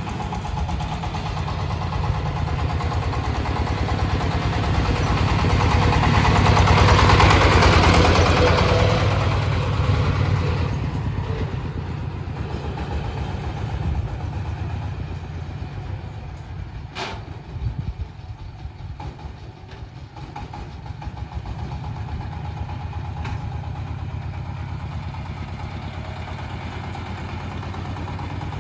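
The engine of a boat-hulled paddy-field plough chugging steadily as it drives along a road. It grows louder to a peak about seven seconds in as it passes, then fades as it moves away. There is one sharp click about seventeen seconds in.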